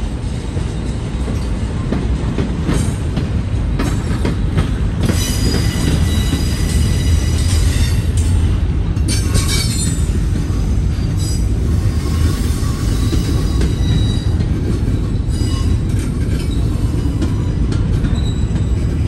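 Double-stack container freight train rolling past at close range: a steady low rumble of wheels on rail, with high-pitched wheel squeals coming and going, strongest from about five to ten seconds in.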